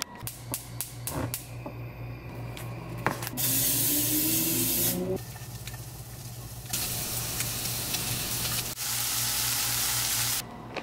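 Pieces of chicken breast frying in a hot nonstick pan on a gas stove. The loud sizzle comes in stretches that start and stop abruptly, after a few light clicks near the start, with a steady low hum underneath.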